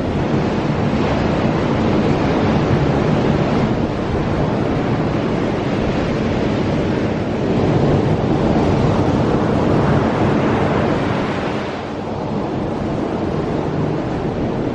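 Strong wind on the microphone mixed with ocean surf: a loud, steady rushing noise that swells and eases every few seconds.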